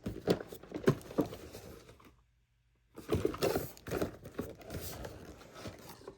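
Irregular light knocks and crinkling, with a short dead silence about two seconds in.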